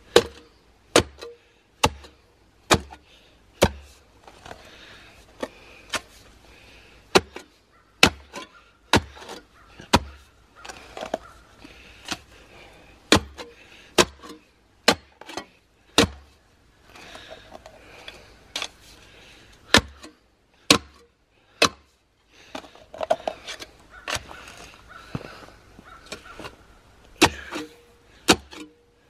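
Kobalt steel clamshell post-hole digger jabbed repeatedly into a post hole: sharp thunks as the blades strike the dirt, about once a second, with a couple of short pauses.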